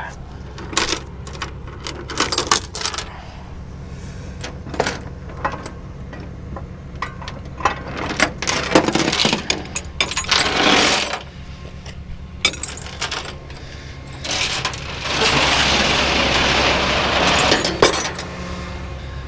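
Tow truck engine idling steadily under a series of metallic clinks, clanks and rattles, as of tow chains and hooks being handled. Near the end a loud even rushing noise lasts about three seconds.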